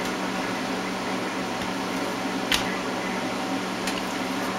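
A steady fan hum, with a sharp knock on the wooden cutting board about two and a half seconds in and a fainter one near the end.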